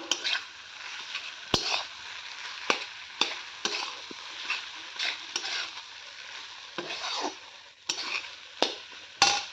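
Food sizzling as it fries in a wok, stirred with a long metal spoon that scrapes across the pan and knocks against it now and then with sharp clicks.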